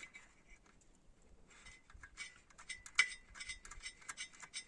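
Light metallic clicks and clinks of piston rings, piston and cylinder knocking together as stubborn rings are worked into the cylinder. A scatter of small ticks starts about a second and a half in, with one sharper click about three seconds in.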